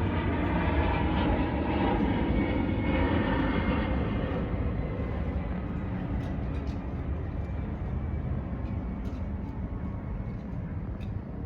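Steady low engine rumble of something passing, loudest in the first few seconds and then slowly fading away.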